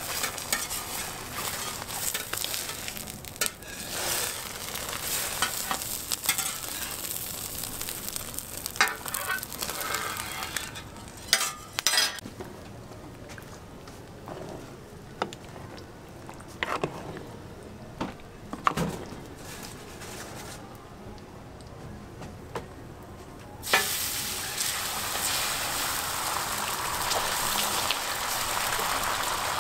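Egg sizzling on a hot flat-top griddle while a giant omelette is rolled with a metal spatula, with scraping and clinks. Midway it goes quieter, with a few sharp metal knocks around a pan of tteokbokki. About 24 seconds in, a sudden loud sizzle starts as a ladle of beaten egg hits the griddle and keeps frying steadily.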